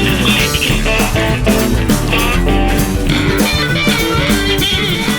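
Upbeat background music with guitar and a steady drum beat.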